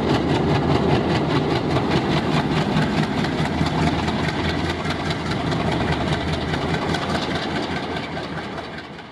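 Diesel locomotive engine running steadily with a fast, even beat, fading out near the end.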